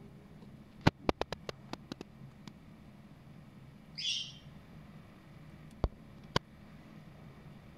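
A quick run of sharp clicks and taps, a short high chirp about four seconds in, then two more single clicks.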